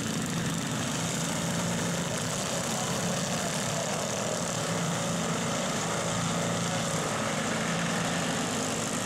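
Several racing garden tractors' small engines running at once, a steady continuous engine sound.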